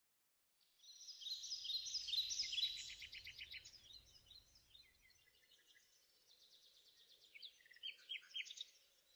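Birdsong: many small birds chirping in quick repeated trills, starting about half a second in and loudest over the next two seconds, then thinning to scattered chirps with a few sharper calls near the end.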